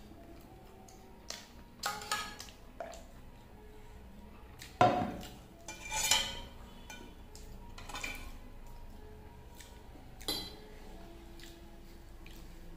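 Stainless-steel pot and plate clinking and knocking together as the pot is tipped and set down. About six separate clinks, the loudest about five seconds in, and one a second later that rings briefly.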